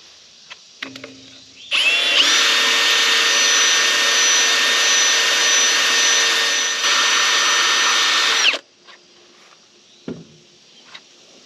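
Electric drill running at a steady speed for about seven seconds with a constant whine, then stopping abruptly. A few light knocks come before it, and a single dull thud comes after.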